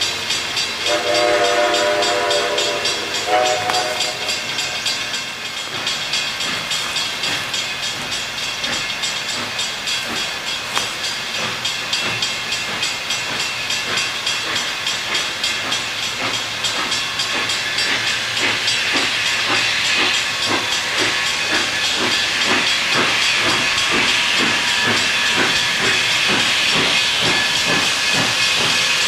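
Baldwin 2-8-0 steam locomotive approaching unseen: its whistle blows one blast about a second in, lasting about three seconds. Then a steady, fast beat of exhaust chuffs over hissing steam grows louder as it nears.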